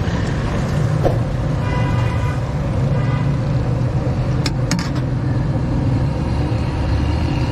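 Steady low rumble of road traffic, with a few sharp clicks about halfway through.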